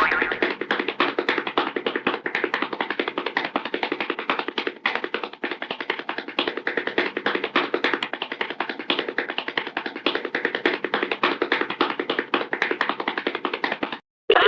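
Hanna-Barbera cartoon running sound effect: a fast, even patter of bongo hits, about ten a second, with a brief break about five seconds in, cutting off suddenly near the end.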